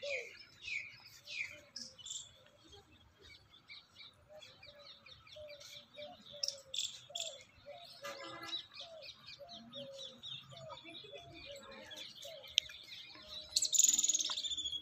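Several birds chirping and calling: quick high chirps and falling sweeps, a run of lower repeated notes through the middle, and one loud falling call near the end.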